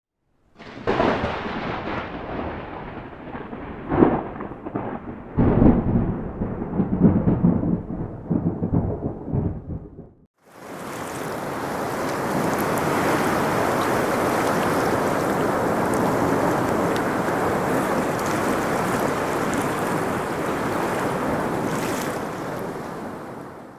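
Thunder rumbling in heavy swells for about ten seconds, then, after a brief gap, a steady rush of heavy rain that fades away near the end.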